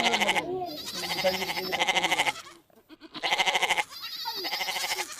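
Goats bleating: several long, quavering calls one after another, with a brief pause about two and a half seconds in.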